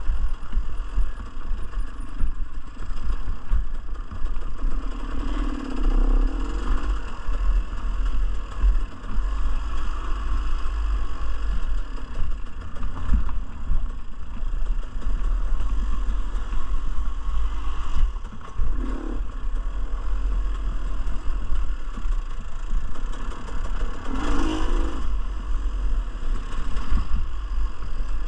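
Dirt bike engine running and revving while riding rough trail, with clattering and a heavy steady low rumble throughout.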